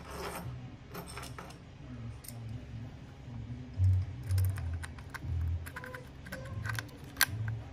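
Light clicks and clinks of small metal parts being handled as an aluminum air filter housing and its foam are fitted to an RC truck's gas engine, with a few soft low thumps.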